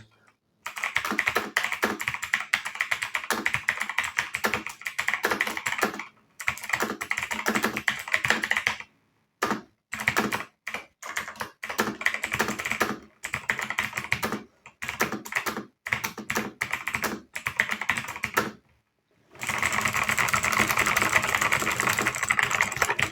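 Typing on a TVS Gold Prime mechanical keyboard with linear red switches: fast runs of key clicks broken by short pauses, ending in a long unbroken run.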